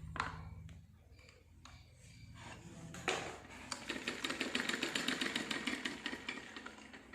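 Sewing machine running at speed for about four seconds, a rapid even clatter of needle strokes at roughly ten a second, after a few scattered handling clicks.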